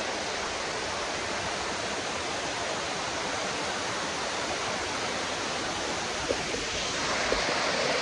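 Waterfall pouring over rocks close by, a steady, even rush of water.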